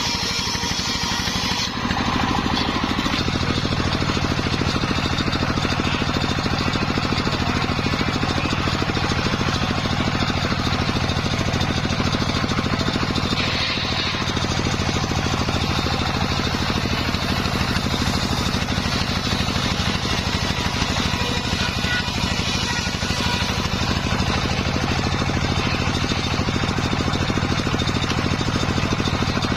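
Circular sawmill rig running steadily with a continuous engine-like drone. A brighter hiss on top stops suddenly about two seconds in.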